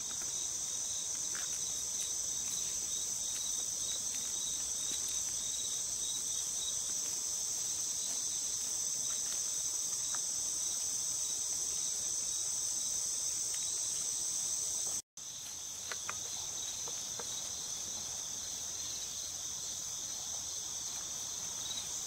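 Steady, high-pitched chorus of insects, with a pulsing layer a little lower beneath it; it drops out for a moment about fifteen seconds in.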